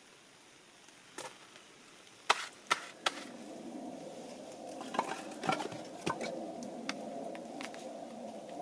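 Sharp knocks of wood being chopped or struck, several in quick succession about two to three seconds in. They are followed by a steady low rushing noise with scattered crackles.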